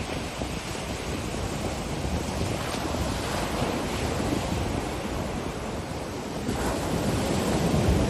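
Ocean surf washing steadily onto a beach, with wind rumbling on the microphone. The rush of water grows louder near the end as a wave breaks.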